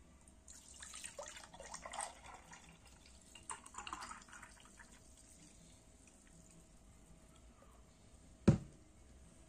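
Tomato and onion juice poured into a drinking glass, splashing and trickling in two spells over about four seconds. About a second before the end, a single sharp knock.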